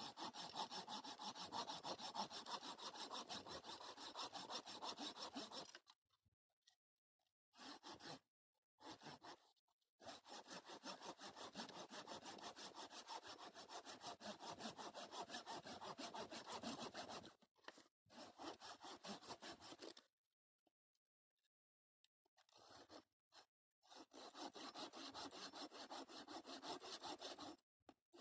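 Hand saw cutting through firewood in runs of quick, even back-and-forth strokes, with pauses of silence between the runs.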